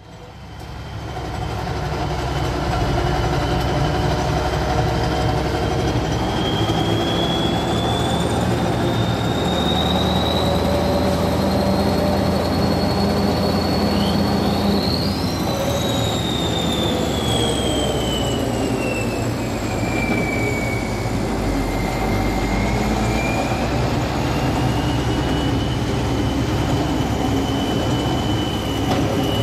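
Heavy tractor diesel engines running under load: a deep, steady rumble that fades in over the first couple of seconds. Over it a high whine slowly rises, falls and rises again, with a brief sharper rising whistle about halfway.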